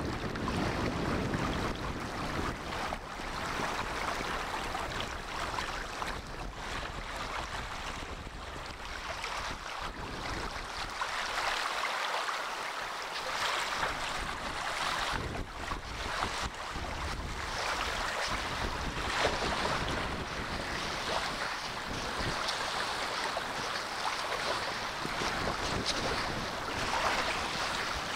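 Small waves lapping and washing over shallow water along a sandy shore, with wind buffeting the microphone.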